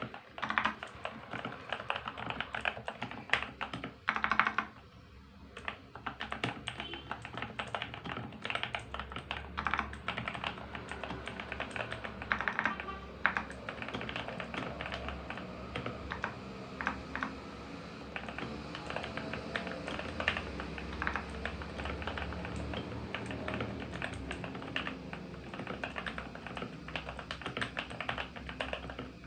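Fast typing on an Armaggeddon MKA-3C mechanical keyboard with Outemu blue switches that have been lubed with Vaseline and damped with foam and masking tape under the PCB. Keystrokes follow one another continuously, with a short pause about five seconds in.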